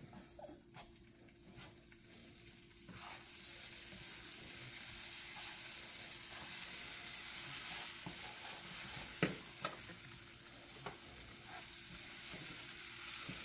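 Couscous and stew sizzling in a hot frying pan as they are stirred together with a wooden spoon. The sizzle starts about three seconds in and holds steady, with a few knocks of the spoon against the pan.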